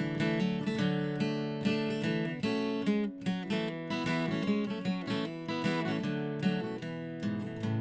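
Acoustic guitar strummed steadily in an instrumental passage, no singing.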